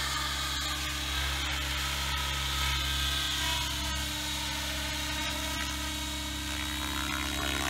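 Align T-Rex 700E electric radio-controlled helicopter in flight: a steady electric motor whine with the hum of its spinning rotors.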